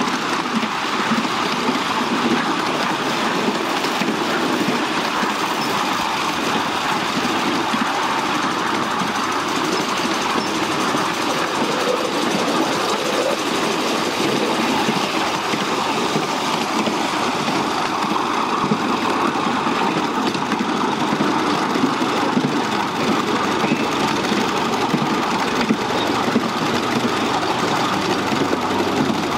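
Miniature railway train running steadily along its track, the locomotive's engine noise mixed with the rumble of small wheels on the rails, heard from the passenger seats.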